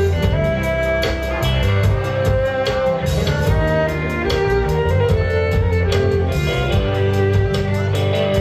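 Live band playing: a fiddle carries a bowed melody over electric guitar, bass and drums keeping a steady beat.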